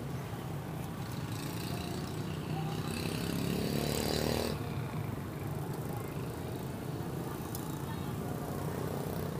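Street traffic rumble with people talking in the background; a vehicle engine swells louder in the first half and cuts off suddenly about four and a half seconds in.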